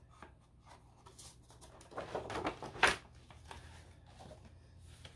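Handling of an album's paper and plastic packaging and photobook: faint rustling, a louder rustle about two seconds in, and one sharp click or tap just before the three-second mark.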